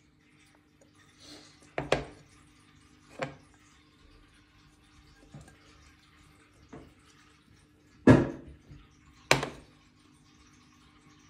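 About six short knocks and clinks from a glass jar of gummy treat bones being handled, spaced one to two seconds apart, with the two loudest near the end, over a faint steady hum.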